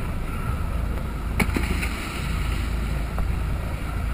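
Steady low rumble of a dive boat at sea, with wind buffeting the microphone and water noise. There is a single sharp knock about one and a half seconds in and a fainter one near the end.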